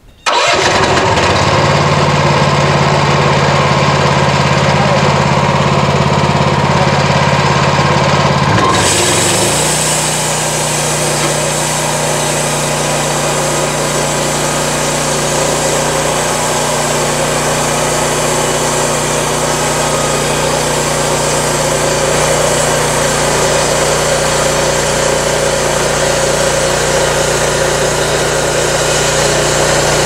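Portable band sawmill running on its engine, its band blade sawing lengthwise through a log. About nine seconds in, the engine note shifts and a higher hiss rises, then the cut runs on steadily.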